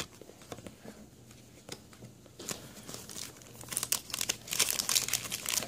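Foil Pokémon booster pack wrapper crinkling as it is handled. Faint scattered ticks at first, then a dense, louder crackle from about halfway in.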